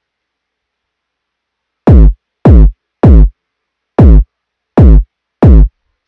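LMMS kick drum sample (kick01) struck six times at an uneven pace, starting about two seconds in. Each hit is a short, loud thump whose pitch drops quickly, with heavy low end. It plays through an equalizer with everything above 1 kHz turned down and a bass booster with its ratio raised.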